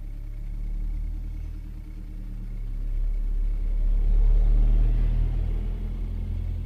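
Farm tractor towing a trailer drives close past a parked car, its diesel engine rumbling as heard from inside the car's cabin. It grows louder, peaks a little past four seconds in, then eases off slightly.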